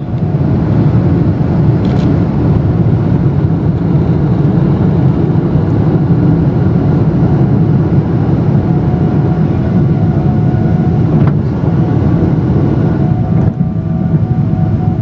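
Boeing 777-200LR's GE90 jet engines running steadily during takeoff: a loud, even low rumble with a few faint steady higher tones above it.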